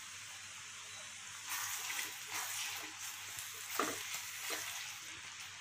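Red chilli and ginger-garlic paste sizzling in hot oil in a kadhai, a steady hiss. From about a second and a half in, a spoon stirs and scrapes through the paste, mixing in the salt.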